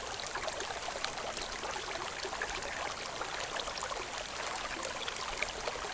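Steady trickling and bubbling of water with many faint crackles, the water circulating in a hydroponic bucket system.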